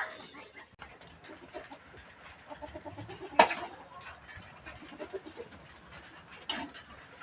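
Faint farmyard sounds with scattered livestock and poultry calls, and two short sharp sounds, about three and a half seconds in and again near six and a half seconds.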